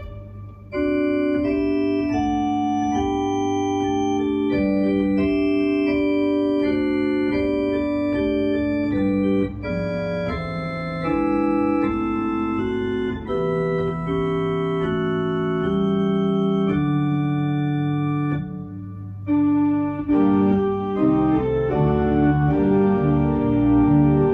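Two-manual electronic home organ played with both hands: sustained chords under a slow-moving melody. There is a short break just after the start and another about three quarters of the way through, then the lower notes move faster near the end.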